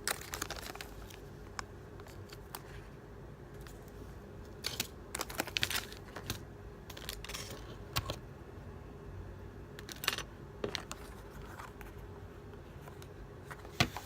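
Packaging of a Kracie Poppin Cookin candy kit being opened by hand: crinkling and tearing with scattered sharp crackles and clicks, over a faint steady hum.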